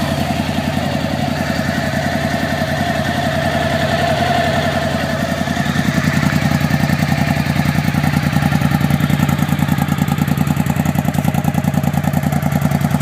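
2007 Suzuki V-Strom DL1000's V-twin idling steadily just after starting, breathing through Two Brothers mid-pipes and early GSX-R Suzuki mufflers. It is a deep, even exhaust pulse, a little louder than stock, and it rises slightly about six seconds in.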